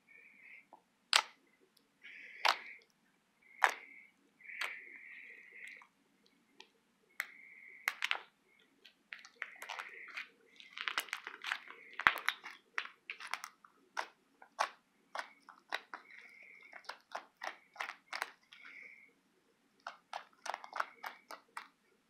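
Clicky slime being squeezed and worked, making sharp clicks and pops mixed with short squishy, crackling bursts. The clicks come fastest about ten to fourteen seconds in and again near the end.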